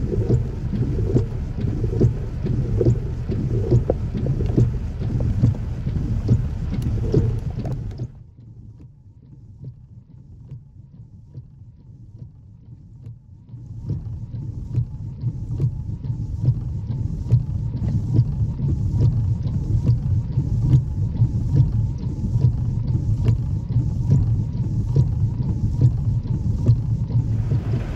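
Heavy rain with wind rumbling on the microphone and many raindrops ticking close by. The sound drops to a much quieter patch for about five seconds around eight seconds in, then the rain and wind noise comes back.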